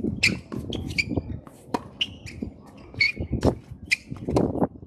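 Tennis rally on a hard court: racket strikes and ball bounces, with birds chirping in rapid short calls.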